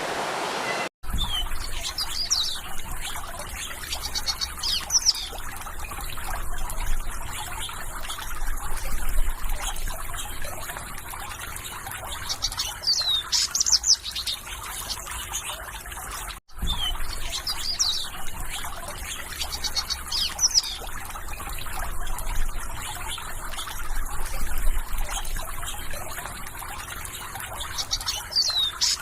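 Trickling stream water with songbirds chirping over it: quick high chirps and short downward-sweeping notes, repeated. The sound cuts out for an instant twice, about a second in and about halfway through.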